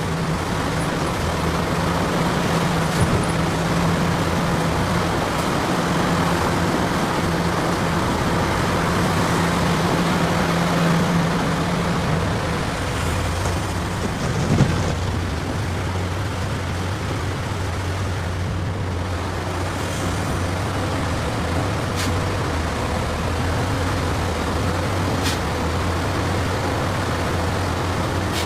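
Heavy diesel engine running steadily, its hum dropping to a lower note about halfway through, with one brief clunk near the middle.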